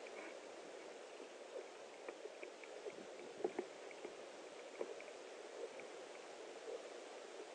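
Owls shifting in their nest: faint rustling and a few soft scrapes and knocks over a steady hiss, the loudest about three and a half seconds in.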